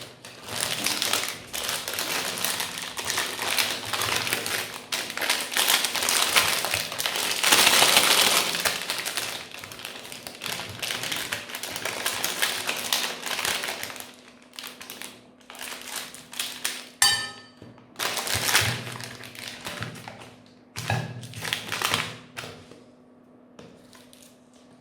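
Meat grinder forcing colourful ice cream through, with dense crackling and crunching over a steady low hum for about the first half. After that come scattered sharp clicks and taps.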